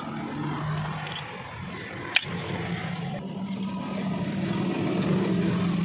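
A steady motor-like hum runs throughout, growing a little louder, with one sharp metallic click about two seconds in as hand tools work the drum brake shoes and their return springs.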